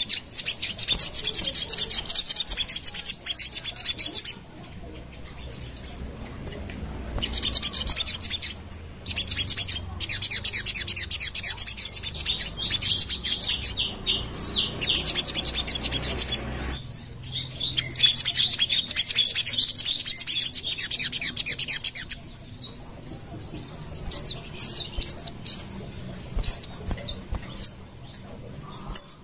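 Sogon bird singing in long, fast, high-pitched chattering trills of a few seconds each, separated by short pauses, breaking into scattered single chirps near the end.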